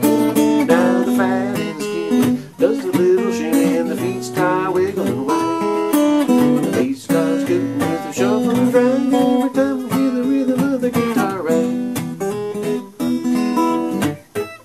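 Background music: an instrumental guitar break from a country-style song, with plucked and strummed guitar notes.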